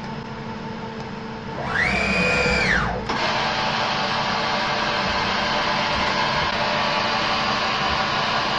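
CNC mill's axis drive motor whining through a rapid table move: the pitch rises, holds, and falls away over about a second and a half. About three seconds in, the spindle starts with a click and then runs steadily at about 810 rpm for the rest of the time.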